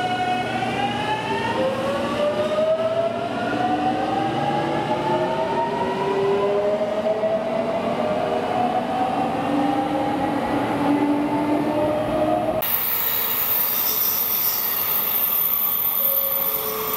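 A JR Kyushu 813 series electric train's inverter-driven traction motors whining as it pulls away, the pitch rising step by step as it gathers speed. About three-quarters of the way through, the sound changes abruptly to steadier, noisier train running noise.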